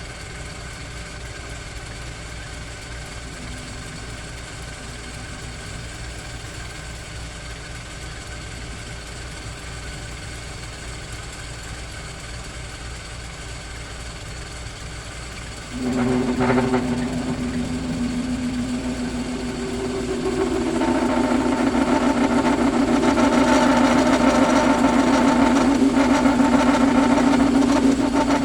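1929 South Bend metal lathe running with a steady hum; about halfway through, the parting tool starts cutting into 303 stainless steel and a steady pitched tone from the cut sets in, growing louder near the end.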